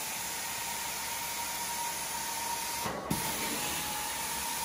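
Carpet-cleaning extraction wand (a Sapphire wand) on a rinse-and-extract pass: a steady hiss of rinse spray and suction air rushing into the wand, with a faint steady whine under it. The hiss breaks off for an instant about three seconds in.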